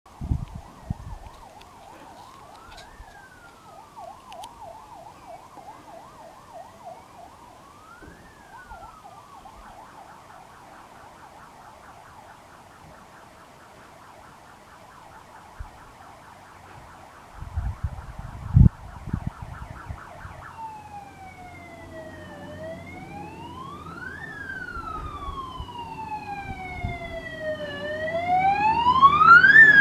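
Fire engine siren approaching: first a distant, fast-warbling siren, then from about two-thirds through a slow wail rising and falling every four or five seconds, growing steadily louder, with the truck's engine rumble coming in near the end. A few low thumps sound shortly before the wail begins.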